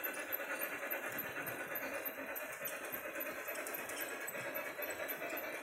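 Model train running along a wall-mounted track: a steady whir with rapid, regular ticking.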